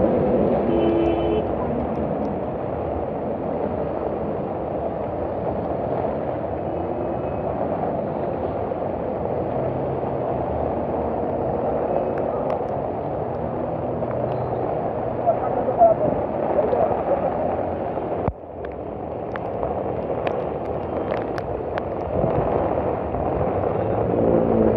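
Heavy rain pouring down steadily on a flooded street as cars drive through the flood water. The sound drops out sharply for a moment about 18 seconds in, then picks up again.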